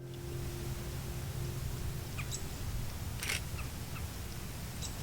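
Outdoor ambience with a steady low rumble and a few short, high bird chirps, one sharper call about three seconds in.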